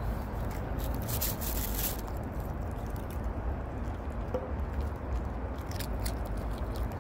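Maltese dog eating raw cucumber pieces from a plastic bag, with crisp crunching and crackling at about one to two seconds in and again near six seconds, over a steady low rumble.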